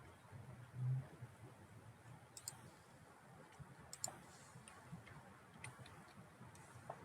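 A few scattered sharp clicks of a computer mouse over a faint background hiss, with one short, louder low sound about a second in.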